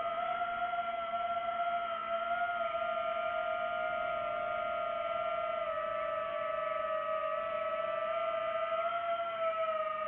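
DJI FPV drone's motors and propellers whining steadily in flight, the pitch drifting slightly lower about halfway through and lifting briefly near the end.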